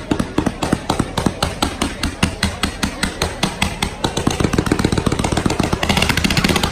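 Fireworks fired in rapid succession: a barrage of sharp bangs about eight a second, growing thicker with a hiss near the end.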